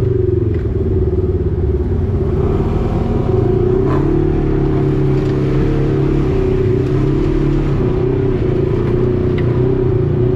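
Side-by-side UTV engine running steadily under way. Its drone holds nearly even, with small rises and dips in pitch, and a few light knocks sound over it.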